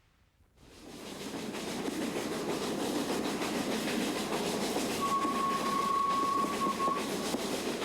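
Steam-hauled train running along the track, heard from on board, fading in and then holding steady. A single steady high tone sounds for about two seconds past the middle.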